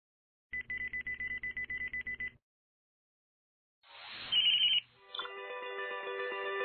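A phone ringing in a rapid trill for about two seconds. After a pause comes a whoosh with a brief high electronic chirp, then light plucked-guitar music starts about five seconds in.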